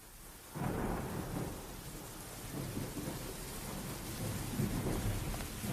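Thunderstorm sound: thunder rumbling over steady rain, coming in suddenly about half a second in.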